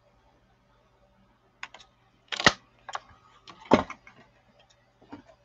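Plastic 1-inch circle craft punch clacking as it punches a disc out of stamped card, among a string of sharp clicks and taps from the punch and paper being handled. The clicks start about a second and a half in; the two loudest come about a second apart.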